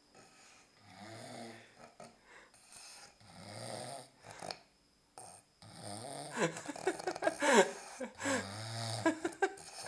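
A man snoring in his sleep, a rasping snore on each breath about every two to three seconds, growing louder and more ragged over the second half.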